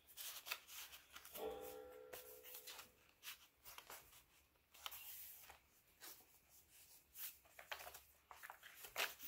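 Faint rustling and crinkling of paper as an embossed paper card is slid into a paper pocket and the pages of a thick handmade junk journal are turned. A short faint tone sounds briefly about a second and a half in.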